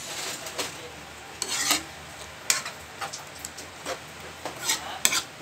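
Metal spoon stirring bamboo shoots in coconut milk in a metal wok, with irregular wet scrapes and clinks against the pan over a steady hiss.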